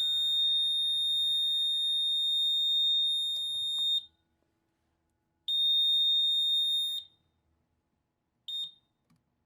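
Fire alarm sounder giving a high, steady electronic tone. It cuts off about four seconds in, sounds again for about a second and a half, then gives one short chirp near the end.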